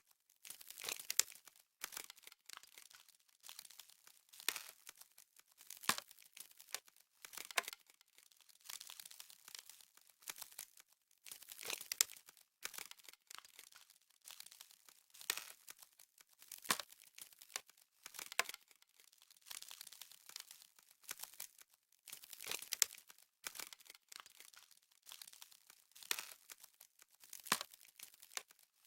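Frost crackling and crunching: dense, irregular runs of crisp little cracks and crinkles with short pauses between, the sharpest snaps about a second in, around six and twelve seconds, and again around twenty-three seconds.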